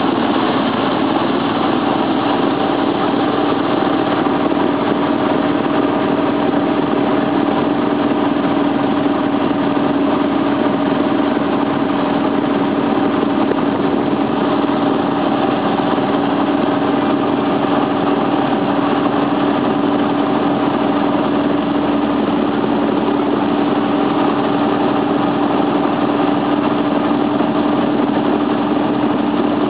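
Motorboat engine running steadily at towing speed, a constant drone whose pitch creeps up slightly toward the end, over the rush of water churned up in the wake.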